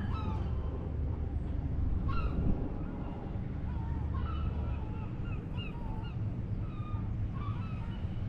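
Birds calling in short honks and squawks that bend in pitch, scattered through, over a steady low rumble.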